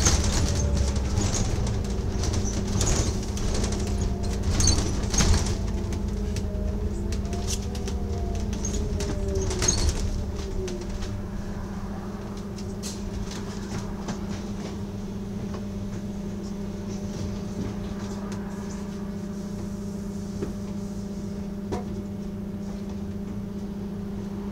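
Bus engine and drivetrain heard from inside the bus: a whine that rises and falls over the first ten seconds or so while the bus is moving, then a steadier, slightly quieter low hum as it slows almost to a stop, with occasional rattles and clicks.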